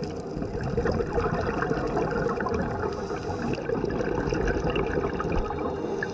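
Water heard underwater: a steady rush with constant fine crackling.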